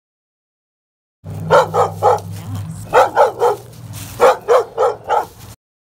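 A fearful dog barking in three quick bursts of three or four barks each, about ten barks in all, starting about a second in.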